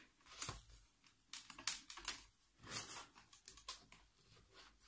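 Faint clicks and light scraping as multimeter test leads are handled and their probe tips touched against a laptop battery pack's terminals.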